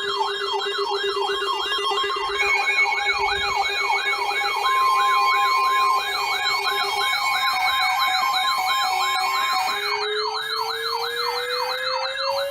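Several electronic sirens sounding together: a fast warbling yelp sweeping up and down about three times a second over steady tones, with a slowly rising wail starting near the end.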